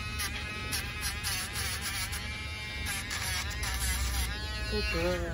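Dremel rotary tool grinding down a dog's nails: a high, buzzing motor whine whose pitch wavers slightly as it bears on the nail, stopping about four seconds in. A short lower-pitched whine follows near the end.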